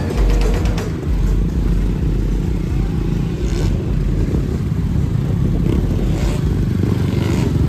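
Small motorcycles and a car pulling away along a street, engines running with a loud, rough low rumble.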